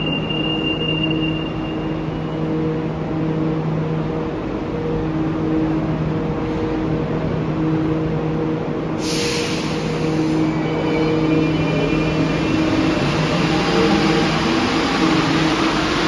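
Alstom NS-16 metro train standing at the platform with a steady electrical hum. About nine seconds in there is a short hiss of air. Near the end its traction motors whine up in pitch as it starts to pull away.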